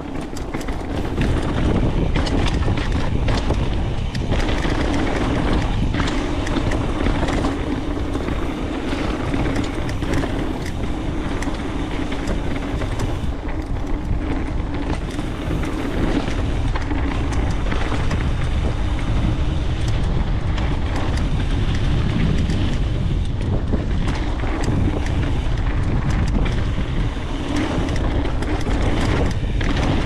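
Wind rushing over the GoPro's microphone and a Specialized Stumpjumper mountain bike's tyres rolling fast over a dirt trail. Frequent small knocks and rattles come from the bike over bumps. It builds over the first couple of seconds, then stays loud.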